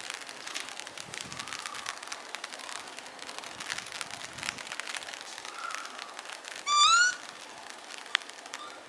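A young tanuki (raccoon dog) gives one short, high-pitched cry that rises in pitch, about seven seconds in, over a steady light patter of rain. A single sharp click follows about a second later.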